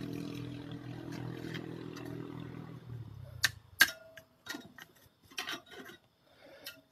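Sticks of firewood knocking and clinking against the sheet-metal body of a biomass gasifier cook stove as they are fed into the fire: two sharp clicks close together about halfway through, then a few lighter knocks. A low steady hum under the first three seconds stops about halfway.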